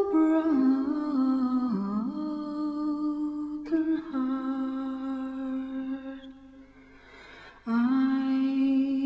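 A woman humming a slow, wordless melody in long held notes that step from one pitch to the next, with a break of about a second and a half in the second half before the humming comes back.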